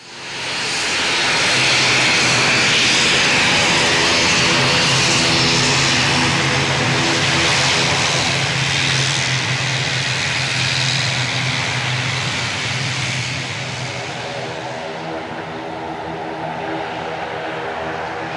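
Air Tahiti ATR turboprop airliner taxiing close past, its engines and propellers running loud and steady with a strong high whine. The whine fades after about fourteen seconds as the aircraft moves away, leaving a lower steady drone.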